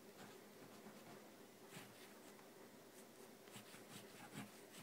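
Faint scratching of a pen writing on a small paper envelope, in a few short strokes.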